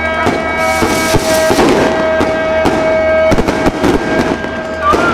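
Fireworks going off in a run of crackles and bangs, densest about a second in and again just past three seconds. Underneath runs a steady held musical tone.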